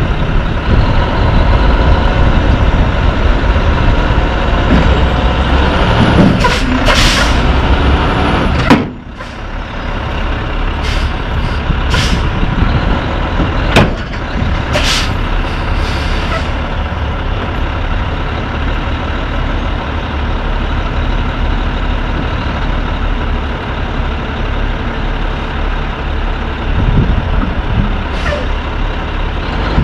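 Heavy truck's diesel engine running, with several short hisses of compressed air from the air brake system. About nine seconds in there is a sharp clack, after which the engine sound is quieter.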